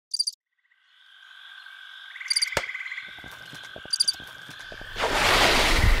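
Frogs calling in a chorus, with short, high, pulsed chirps repeating every second or two. About five seconds in, a louder rushing noise like surf swells in.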